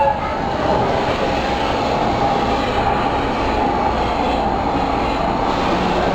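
Recorded train running sound played back through a railway museum exhibit's loudspeakers: a steady rumble with no whistle or horn.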